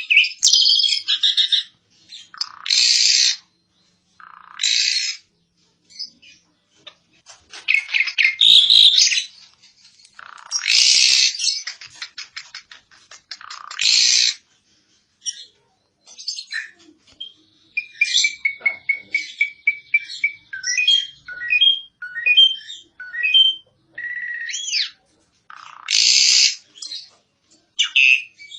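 Asian pied starling (jalak suren) singing: harsh, scratchy bursts of chatter with pauses between them, and around the middle a run of short, clear whistled notes that rise and fall.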